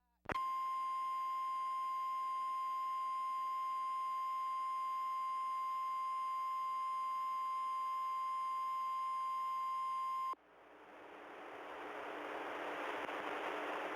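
Emergency alert broadcast tone: a single steady electronic tone a little above 1 kHz, held for about ten seconds and cutting off abruptly. A radio-like hiss then fades up and holds.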